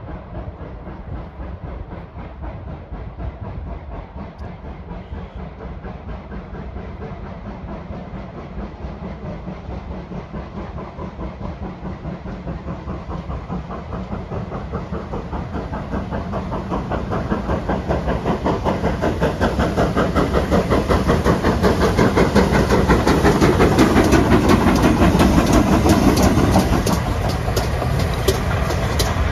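GWR steam locomotive approaching and passing under steam: a fast, even beat of exhaust chuffs that grows steadily louder and is loudest a few seconds before the end.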